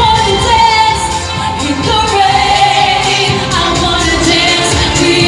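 Pop dance song with singing over a steady beat, about two beats a second.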